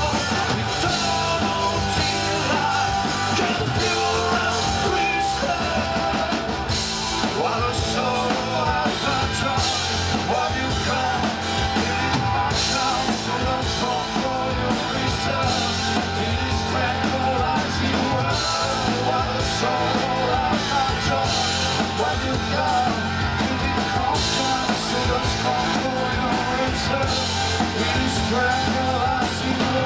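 Live rock band playing: electric guitars and a drum kit, dense and steady throughout.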